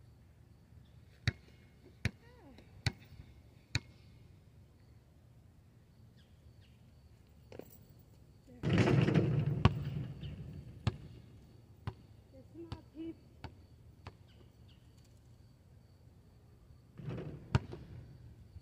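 A basketball bouncing on asphalt, four sharp bounces about a second apart. About nine seconds in, the ball strikes the portable hoop with a loud rattling impact that dies away over a second or two. A few more scattered bounces follow, and another louder knock comes near the end.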